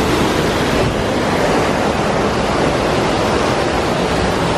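Loud, steady rushing noise with no pitch in it.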